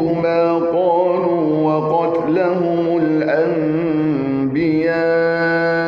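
A man's voice chanting Quran recitation in Arabic in a melodic, drawn-out style, the pitch winding through ornaments and then settling into a long steady held note over the last second or so.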